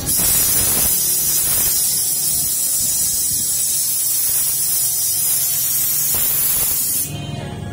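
Loud, steady static-like hiss with a faint low hum beneath. It starts abruptly and cuts off suddenly near the end.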